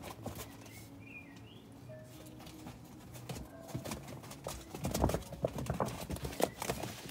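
Quick pattering clicks and taps, typical of puppies' claws on a hard floor, thickening about three seconds in and heaviest around five seconds.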